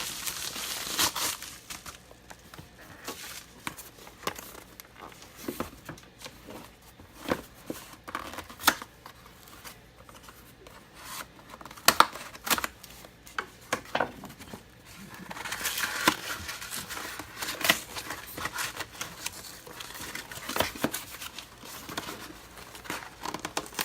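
A mailed package being opened by hand: cutting, tearing and crinkling of tough packaging, with scattered sharp clicks and scrapes. The handling grows busier and louder about two-thirds of the way in.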